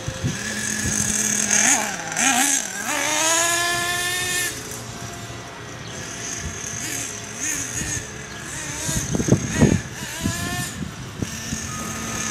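Radio-controlled car's motor whining, its pitch rising and falling as it speeds up and slows, with one long rising whine a few seconds in. A few sharp knocks come around nine to ten seconds in.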